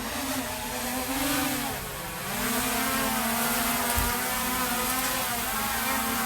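Quadcopter drone propellers whirring as the drone comes down, its pitch dipping and rising again about two seconds in, with a light knock near the middle.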